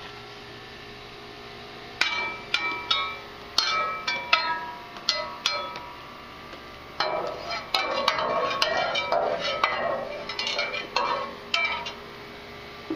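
A string of irregular sharp metallic clinks and clanks, each ringing briefly at much the same pitches. They begin about two seconds in and come thickest in the second half.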